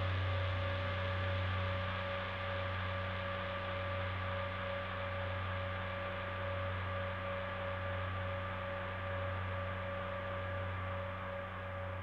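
Modular synthesizer drone: two Minibrute 2S oscillators tuned a fifth apart, run through two filters that are slowly swept by LFOs, with delay and reverb. It holds as a steady low hum with a higher tone ringing above it, swelling and easing gently in level.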